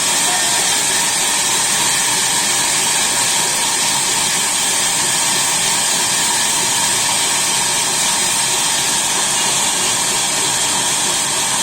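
Sawmill machinery running steadily: a loud, even hiss with several constant machine tones, unchanging throughout.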